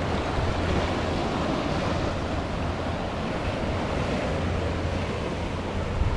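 Sea waves breaking against a rocky shore: a steady rush of surf, with wind buffeting the microphone.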